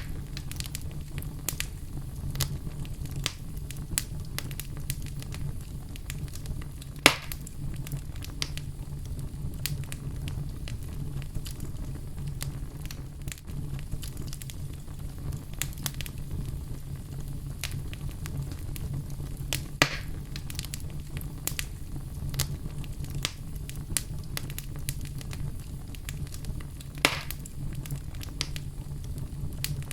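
Wood fire in a fireplace, crackling steadily over a low burning rumble, with many small snaps and three sharper pops, about 7, 20 and 27 seconds in.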